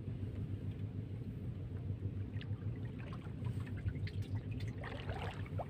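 Water sloshing and lapping against a small outrigger boat's hull over a steady low rumble, with faint ticks from the handline being worked.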